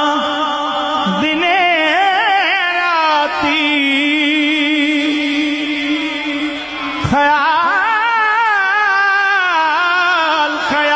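Background music: a voice singing long, wavering, ornamented notes over a steady low held note.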